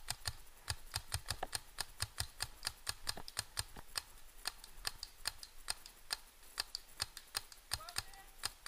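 Paintball markers firing rapid strings of shots, several a second, as sharp pops that run on unevenly.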